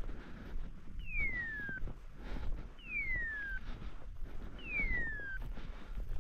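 Dog's beeper collar in point mode, sounding its hawk-scream tone while the dog holds a point: a falling, mewing whistle about a second long, repeated three times at even intervals of just under two seconds.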